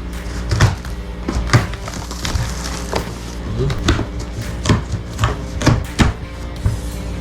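A cardboard shipping box being opened and handled: a run of sharp knocks, scrapes and tearing sounds, roughly one or two a second, over steady background music.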